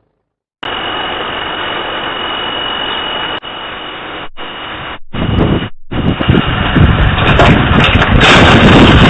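Motorboat under way: a loud, steady roar of engine and rushing noise, broken by several short drop-outs, growing louder and rougher from about five seconds in.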